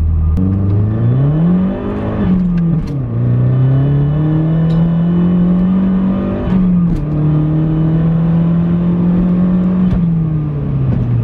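Mazdaspeed 3's turbocharged 2.3-litre four-cylinder under a hard pull, heard from inside the cabin. The revs climb, drop at a gear change about three seconds in, climb again to a second shift around seven seconds in, then hold and fall away near the end as the throttle is eased off.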